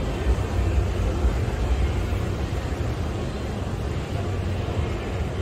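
Indoor exhibition hall background noise: a steady low rumble with faint, indistinct murmur from visitors.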